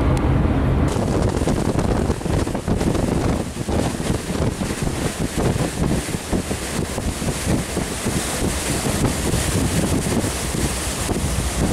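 Wind noise on the microphone over open sea, a rough gusty rush with the wash of waves beneath it. A steady low hum is heard only in the first second.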